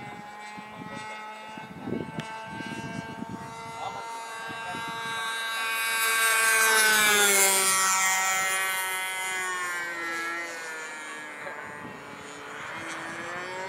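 Challenger 40 Sport RC model airplane flying a low pass: its motor and propeller note grows loud about six to eight seconds in, then falls in pitch as the plane passes and climbs away, and rises again near the end.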